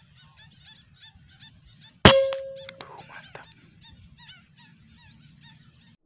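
A single shot from a Jawara Mauser PCP air rifle about two seconds in: a sharp crack followed by a short metallic ring that fades within half a second. Birds chirp repeatedly throughout.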